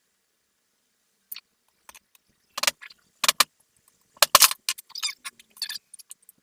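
Sharp metallic clicks and clinks, a handful of separate strikes, the loudest a little past the middle. They come from small steel parts and tools being handled while the loose, unglued magnets are worked out of an e-bike hub motor's rotor.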